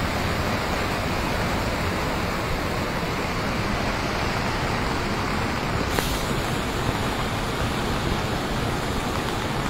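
Steady rushing noise of a flooded river torrent in heavy rain after a cloudburst, with one brief click about six seconds in.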